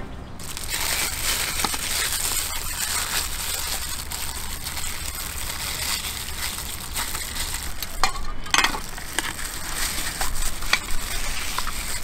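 Food being handled in a clear plastic glove: the glove crinkles and rustles steadily as ingredients are dropped into a bowl, with a few sharp clicks about two-thirds of the way in.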